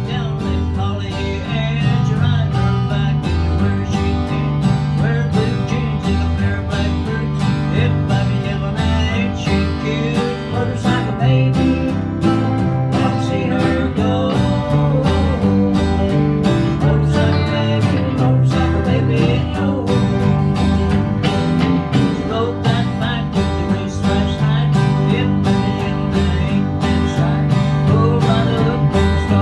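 A small country band playing live: two acoustic guitars, an electric guitar and an electric bass, with a steady strummed rhythm over a walking bass line.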